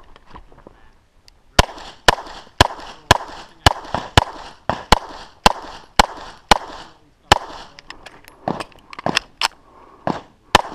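A semi-automatic pistol firing a long string of loud shots, mostly about two a second, the first about a second and a half in, with a brief pause near the last third.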